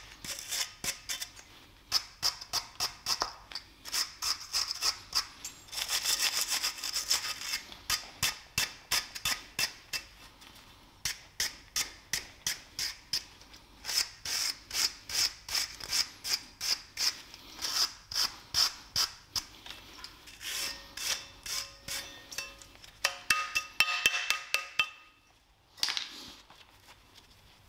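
Hand wire brush scrubbing rust and grime off a brake caliper carrier from a first-generation BMW Mini, in quick back-and-forth scratchy strokes of about two to three a second. There is a short pause near the end before a last few strokes.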